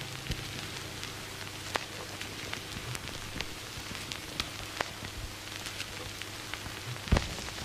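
Steady hiss with scattered light clicks of fingers tapping a Maschine Mikro controller's pads and buttons, and one louder thump about seven seconds in.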